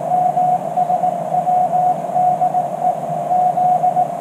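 Morse code sidetone from a CW radio: a single steady tone keyed rapidly into dots and dashes as it is sent with a Morse paddle key, over a low steady hum.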